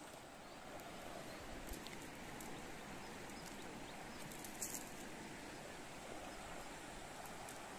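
Steady outdoor background hiss, with a faint tick a little under two seconds in and a sharper click a little before five seconds.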